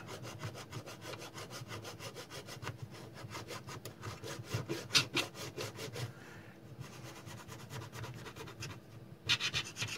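Fine-toothed modeling razor saw cutting through a plastic model-kit part in rapid back-and-forth strokes, louder for a moment near the end.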